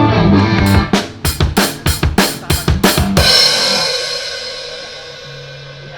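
Rock band at a sound check: electric guitar notes for about the first second, then a quick drum-kit fill of about a dozen hits, ending in a cymbal crash that rings out and fades.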